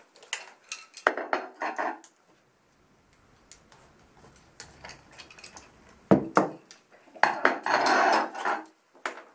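Metal parts of a dog wheelchair clicking and clattering as the side extender tubes are worked out of the frame and set down, with one sharp knock about six seconds in. Near the end a longer rustling scrape against the foam packaging tray.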